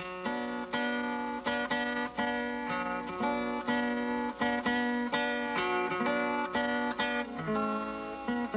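Acoustic guitar music: a steady run of picked notes, one after another.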